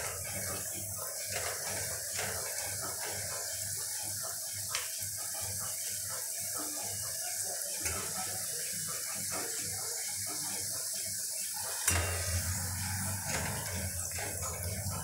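Puri deep-frying in hot oil in a kadhai: a steady sizzle as it puffs up. A single light knock about twelve seconds in.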